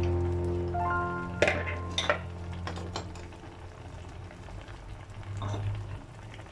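Background music fading out early on, then a few sharp clinks of a utensil against a cooking pot, over the low, steady hiss of a pot of soup on the stove.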